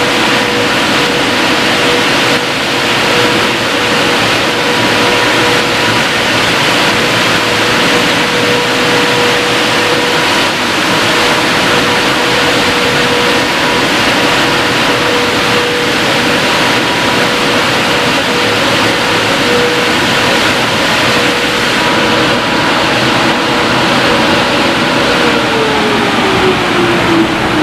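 Christ Varius rollover car wash's blower dryer fans running: loud rushing air with a steady whine. About 25 seconds in the whine slides down in pitch as the fans wind down at the end of the drying pass.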